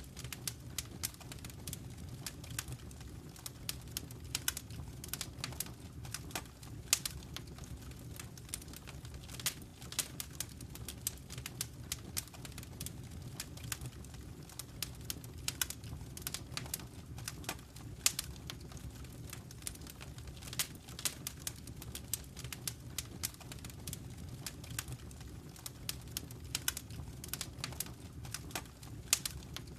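Wood fire crackling: frequent irregular sharp pops and snaps over a low steady rumble.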